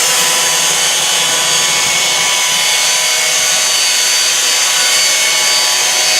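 Boat motor running at a steady speed, a constant mechanical whine over a loud hiss.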